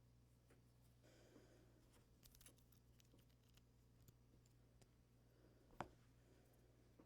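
Near silence with faint small clicks and rustling from handling small plastic keyboard-switch parts, and one sharper click near six seconds in.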